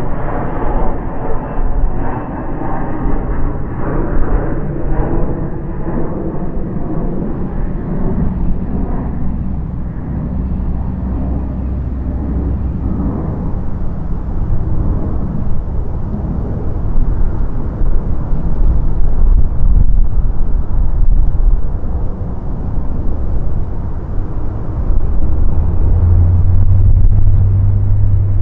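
Airbus A350-1000 jetliner's Rolls-Royce Trent XWB engines: a loud, continuous deep jet roar and rumble. Some whining tones in the first few seconds fade out, and the low rumble grows louder in the last few seconds.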